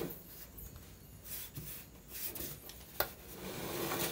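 Steel drum of a Speed Queen front-load dryer turned by hand, with faint scraping and rubbing and one sharp click about three seconds in. The drum is binding and rubbing as it turns, the cause of the dryer's noisy spinning.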